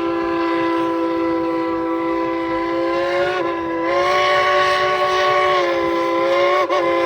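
Narrow-gauge steam locomotive's whistle blowing one long, loud, continuous blast of several tones together, its pitch wavering briefly a couple of times as the valve is worked.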